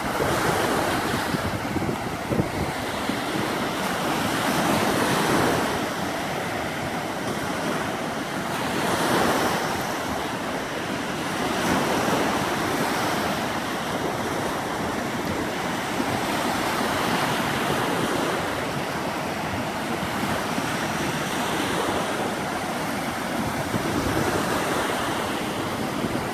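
Small lake waves breaking and washing up onto a sandy beach, a steady wash that swells every three or four seconds as each wave comes in, with wind buffeting the microphone.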